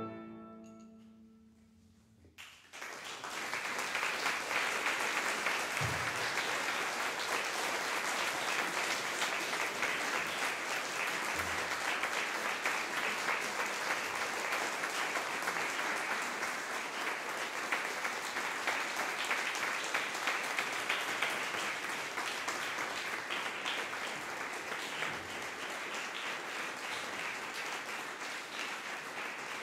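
The final chord of clarinet, cello and piano dies away into a moment of hush, then the audience breaks into steady applause, which eases a little near the end.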